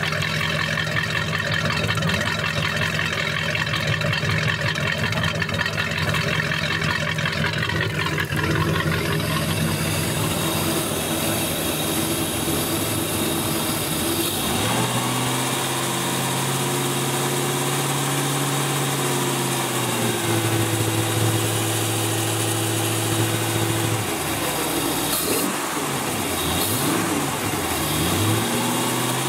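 Ski boat's inboard carbureted engine running, idling steadily at first; from about halfway the revs are raised and lowered a few times by hand at the carburetor throttle linkage.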